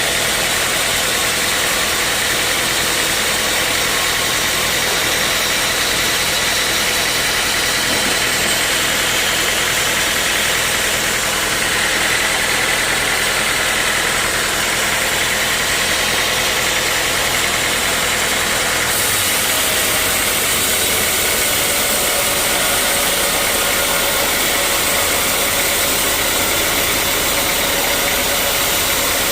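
Sawmill machinery running steadily, a loud continuous mechanical noise with no breaks.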